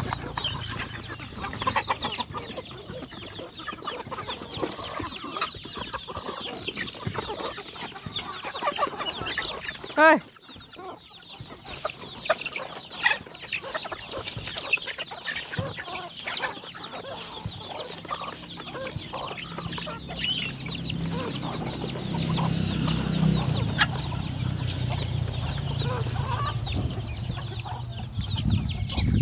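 A flock of free-range native chickens clucking and chirping in many short calls while they feed on grain, with one loud call about ten seconds in.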